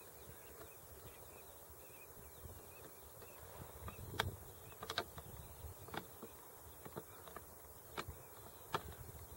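Wind rumbling on the microphone, with a string of sharp clicks about once a second through the second half.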